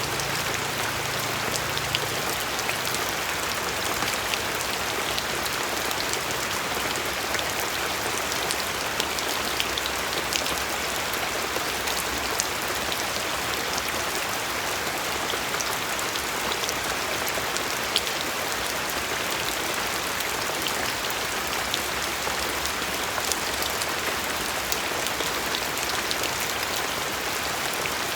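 Steady rain falling, a dense even hiss with many scattered individual drops ticking on a surface.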